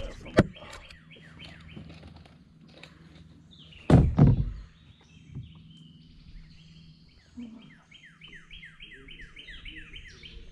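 A songbird singing series of quick, falling whistled notes, several a second, near the start and again through the second half. A loud thump about four seconds in, and a smaller sharp knock just before it, within the first half second.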